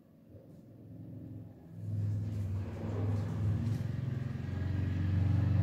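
A low, steady engine rumble that swells up about two seconds in and keeps going.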